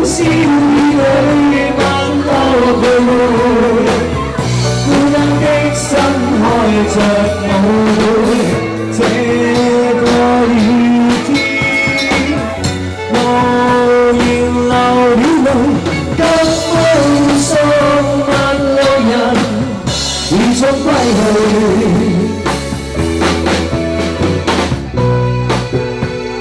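Instrumental interlude of a Cantopop backing track between sung verses: a lead melody over bass and drums.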